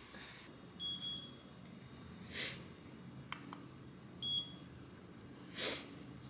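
A short electronic beep, sounding twice about three seconds apart, with a fainter short breathy sniff after each.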